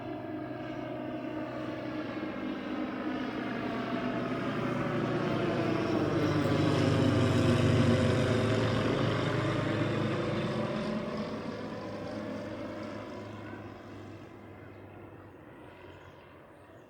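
Light propeller plane flying low overhead. The drone of its piston engine and propeller grows louder, peaks about halfway through as it passes, then fades away.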